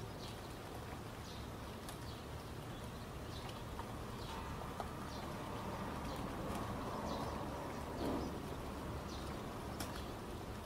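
Ambient nature recording of birds chirping: many short, falling chirps come at irregular intervals over a steady low hum and hiss.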